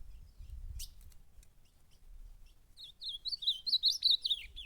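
Ultramarine grosbeak (azulão) singing a fast warbled phrase of nearly two seconds that begins about three seconds in, after a single short high note about a second in. A low rumble runs underneath.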